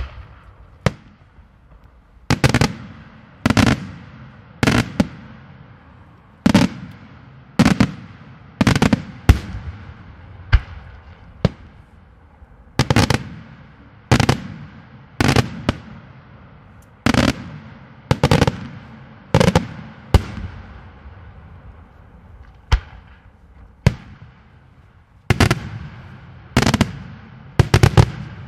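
Daytime aerial fireworks shells bursting overhead in a steady sequence of loud bangs, roughly one every second or so, some in quick doubles, each trailing off in an echo.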